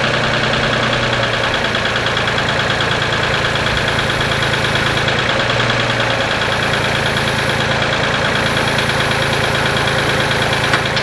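Tractor engine running steadily with an even, fast pulse, and a single short click near the end.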